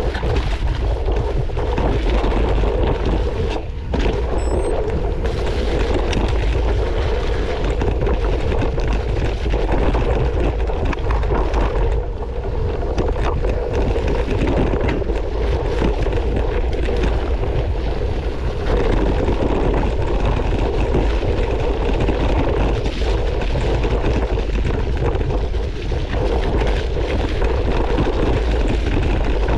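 Mountain bike riding over a rocky, muddy trail, heard through a handlebar-mounted camera: steady wind buffeting on the microphone with tyre noise and bike rattle, briefly easing about four seconds in.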